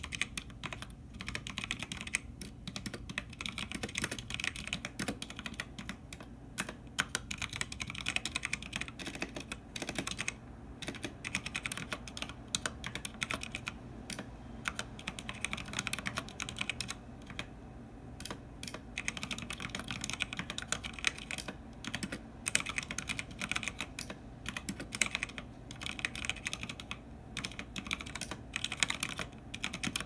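Typing on a TeamWolf Zhuque TKL mechanical keyboard fitted with Kailh Speed Copper tactile switches. The keycaps are doubleshot ABS on the left half and laser-etched POM on the right. The typing is steady and irregular, under 50 words a minute, with a few brief pauses.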